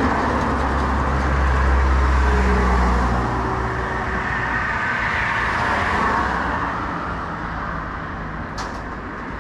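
A motor vehicle going by on the road: a low engine rumble for about the first three seconds, then road noise that slowly fades away.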